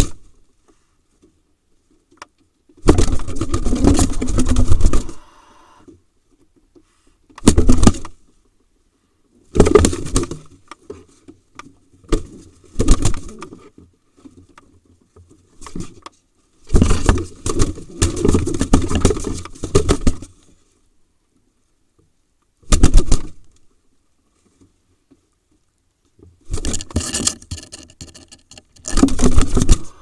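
A pigeon beating its wings and scuffling against the walls and nesting straw of a nest box while a barn owl attacks it, in about eight separate bouts of loud flapping with quiet gaps between.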